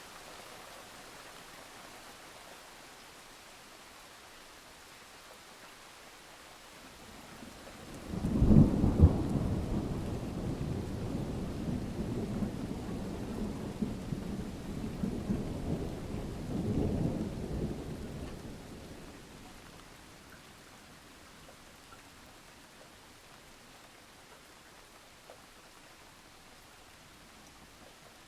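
Steady rain hiss with a roll of thunder. The thunder breaks in sharply about eight seconds in, rumbles for about ten seconds with a second swell near its end, then fades back to the rain.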